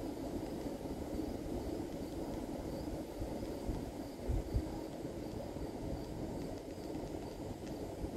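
Steady outdoor background rumble with faint insect chirping, a high chirp repeating evenly. About four seconds in there is a brief low thump or gust.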